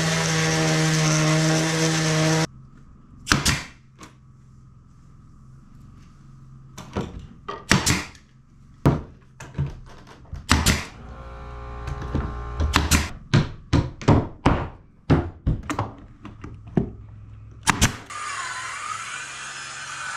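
A power tool runs for a couple of seconds and cuts off suddenly. Then come about two dozen sharp, irregular knocks on wood, singly and in quick pairs, as hardwood floorboards are knocked into place.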